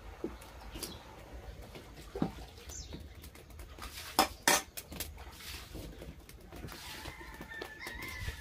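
Metal wok and utensils clinking and scraping as the wok is lifted off a wood-fired stove and set down, with a few sharp knocks, loudest about four seconds in.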